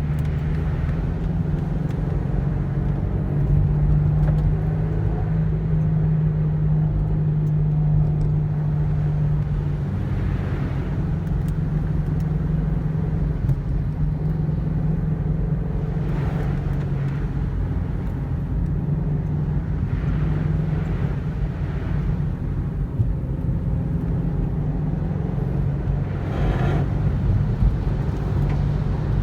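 Subaru WRX STI (VAB) turbocharged flat-four engine running at a steady cruise, a low even hum over tyre and road noise.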